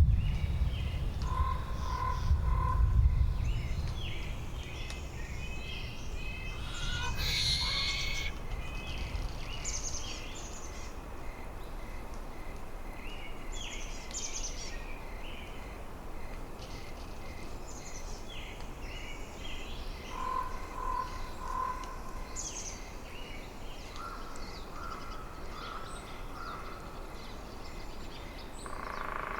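Winter forest ambience: wind gusting low for the first ten seconds or so, then easing off, with scattered short calls of small birds throughout and a few repeated lower call notes twice.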